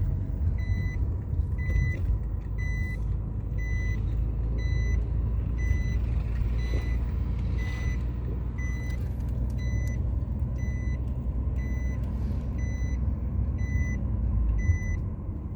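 Electronic beeping, short beeps of one pitch at about two a second, over a continuous low rumble.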